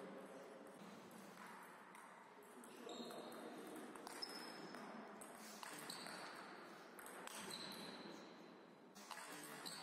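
Table tennis ball struck back and forth on bats and the table: a string of sharp clicks, several with a short high ping.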